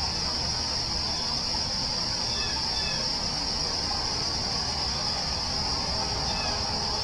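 Daytime forest ambience: a steady, unbroken high insect drone, with a few faint, short bird chirps scattered through it over a low rumble.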